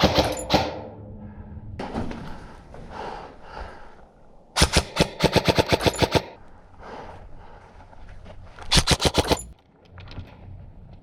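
Airsoft gun firing rapid full-auto bursts: a short burst at the start, a longer burst of about a dozen shots about five seconds in, and another short burst near nine seconds, with fainter shots in between.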